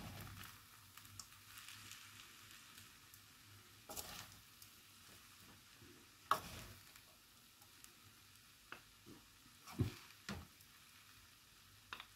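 Fried rice sizzling faintly in a stainless steel wok while it is stirred with a wooden spatula and a metal spoon, with a few scrapes and knocks of the utensils against the pan, the loudest a little after six seconds and near ten seconds.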